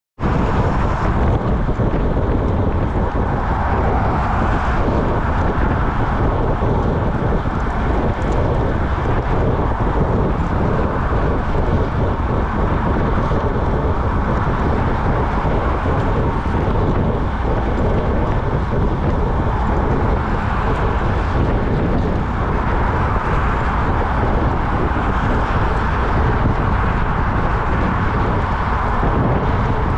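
Steady rushing wind and road noise on a bicycle-mounted camera's microphone while a road bike is ridden at speed.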